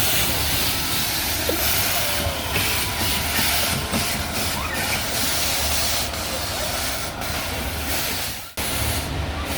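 Steady rushing hiss with a few scattered clicks. It cuts out briefly near the end.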